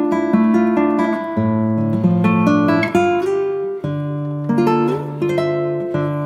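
Background music: acoustic guitar playing a plucked melody over a steady strummed accompaniment.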